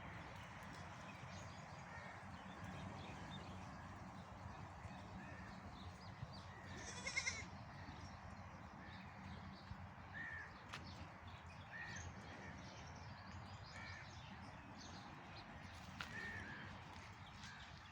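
Animal calls over a steady background hiss: one loud, harsh call about seven seconds in, then short calls repeating every couple of seconds.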